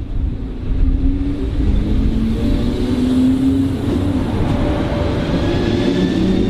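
A Deutsche Bahn S-Bahn electric multiple unit running close past on the track. A low rumble of wheels on rails rises about a second in, under several steady electric whining tones from its drive.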